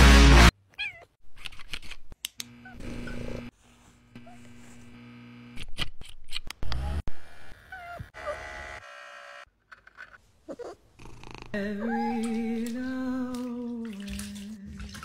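Domestic cats meowing in short calls between brief rustles and taps. A handheld electric pet grooming brush runs steadily for a few seconds in the middle.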